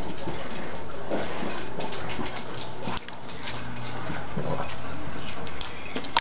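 Boston terrier whimpering as it moves about, over a steady rustling noise.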